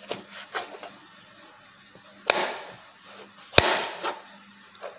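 Kitchen knife cutting through a raw carrot onto a chopping board as the carrot is trimmed square: a few light cuts, then two louder chops with a short scraping tail about a second apart, and a couple of lighter taps near the end.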